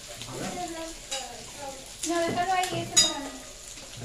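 Sausages and meat sizzling on a tabletop grill pan, with cutlery clinking against plates and the pan. One sharp clink about three seconds in is the loudest sound.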